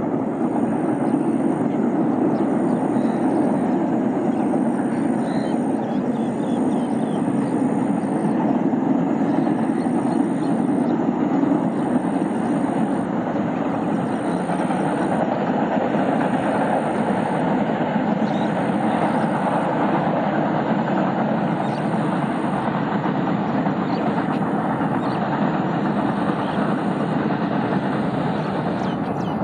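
GEU20 diesel-electric locomotive hauling a passenger train across a steel truss river bridge: a steady rumble of engine and wheels on the bridge spans.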